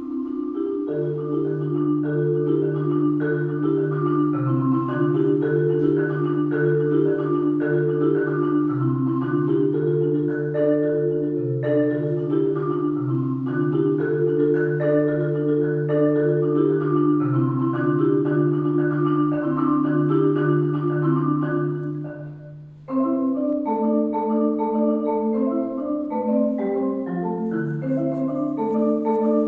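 Solo concert marimba played with four mallets: a busy, flowing figure of notes over sustained low bass notes. About two-thirds of the way through the sound briefly dies away, then picks up again with a different, sparser figure.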